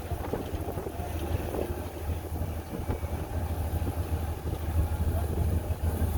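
Heavy machinery's diesel engine running as a steady low rumble, with wind buffeting the microphone.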